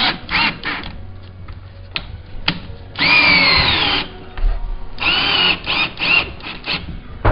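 Power drill driving a ZZem Screw insert into a stripped hinge-screw hole in a wooden door jamb, in two short runs about three and five seconds in. The motor's whine drops in pitch as the first run ends.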